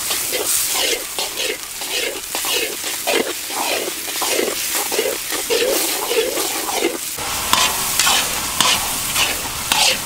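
Chopped tomatoes, onions and green chillies sizzling in oil in a large iron kadai while a metal ladle scrapes and stirs them in quick, irregular strokes. About seven seconds in, the scraping stops and a steadier sizzle carries on.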